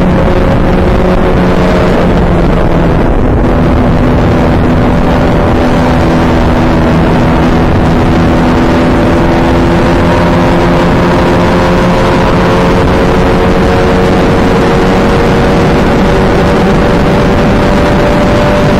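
Open-wheel race car's engine running hard under full load, heard onboard. Its pitch drops about two seconds in, as on an upshift, then climbs steadily as the car gathers speed.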